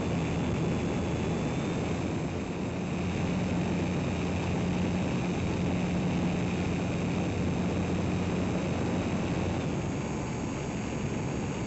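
Electric motor and propeller of an EasyGlider motor glider running steadily under a constant rush of air. A low steady tone drops away about nine seconds in.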